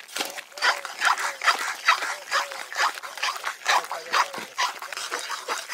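Metal ladle stirring and scraping vegetables against the side of a steel karahi, a quick run of scrapes a little over two a second.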